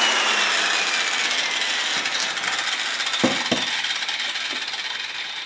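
Electric angle grinder winding down, its whine falling slowly in pitch as the noise fades, with two knocks a little after three seconds in.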